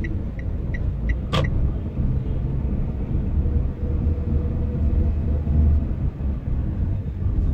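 Steady low rumble of a car's engine and road noise heard from inside the cabin while driving slowly in city traffic. A quick, even ticking stops about a second in, followed by a single sharp click.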